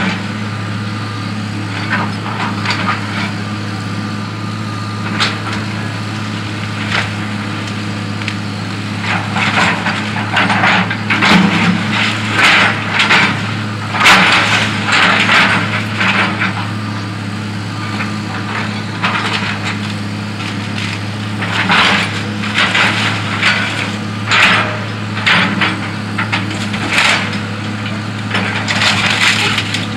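Hitachi EX200 hydraulic excavator's diesel engine running steadily as its bucket tears into a wood-frame house wall, with repeated bursts of wood cracking and splintering. The cracking comes in clusters, loudest about halfway through and again a little later.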